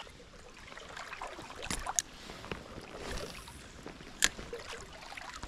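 Spinning reel being cranked to retrieve a lure, with a few sharp clicks from reel and rod handling, the loudest near the end. The rush of a small creek runs underneath.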